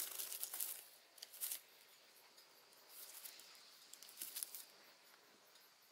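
Faint, scattered rustling and crunching: footsteps through dry leaf litter and ferns, then the handling of a trail camera and its strap as it is fastened around a birch trunk.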